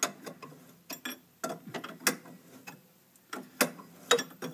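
Hand ratchet wrench clicking in short, uneven runs with light metal clanks as a tie rod end nut is worked down its stud past damaged threads.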